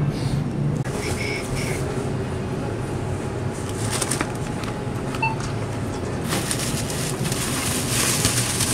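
Thin plastic shopping bags crinkling and rustling as they are handled at a checkout bagging rack, over a steady low store hum. About a second and a half in there are two short high beeps.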